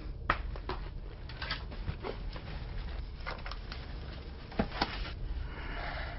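Footsteps and small knocks on a debris-strewn floor: irregular taps and clicks, the loudest two close together about four and a half seconds in, over a low rumble.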